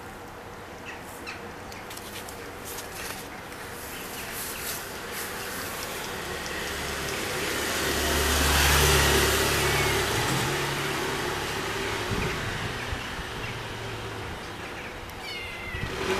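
A motor vehicle passes on the street: a low rumble and broad noise swell to a peak about halfway through, then slowly fade. A few short high-pitched chirps come near the end.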